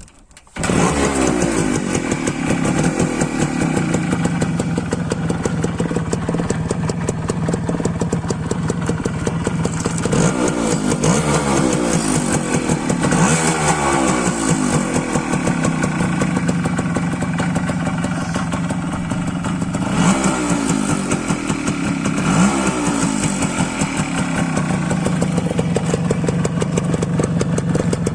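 1999 Suzuki Samurai's two-stroke single-cylinder engine starts about half a second in and then runs. Its pitch rises and falls in a couple of throttle blips around the middle and again later.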